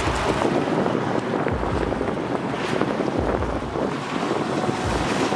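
Wind buffeting the microphone in uneven low gusts over a steady rush of wind and surf.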